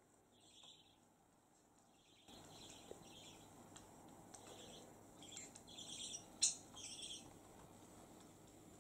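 A drowsy lutino budgerigar making soft, short chirps, several of them spread through, with one sharp click in the second half.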